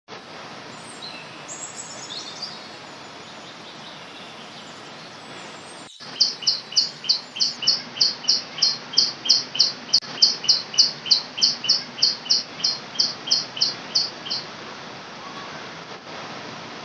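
A wild bird calling: a fast, even run of high, clear repeated notes, about three a second, from about six seconds in until near fourteen and a half seconds, with a few fainter falling chirps earlier. Underneath is a steady rush of a rocky river stream.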